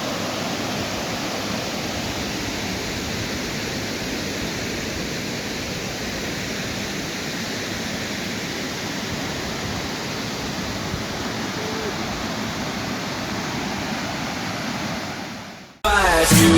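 Steady rush of a waterfall, fading out near the end as music cuts in.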